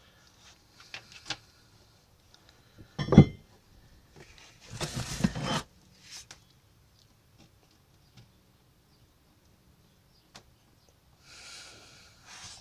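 Steel hand tools being handled and set down: a sharp clank with a brief metallic ring about three seconds in, a rustle of handling a couple of seconds later, and a smaller rustle near the end.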